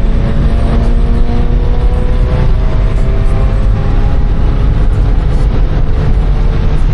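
Car driving, heard from inside the cabin: a loud, steady engine and road drone, with faint engine tones easing slightly down in pitch.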